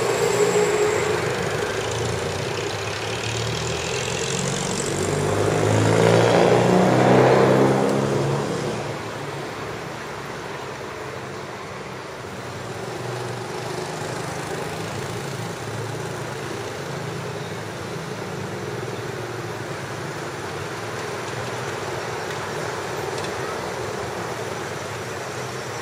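Road traffic: a motor vehicle passes close, its engine sound swelling and fading about six to eight seconds in, over a steady traffic hum.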